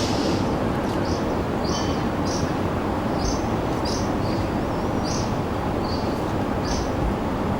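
Steady low rumble of helicopters flying overhead, with short high-pitched notes breaking in irregularly, about once or twice a second.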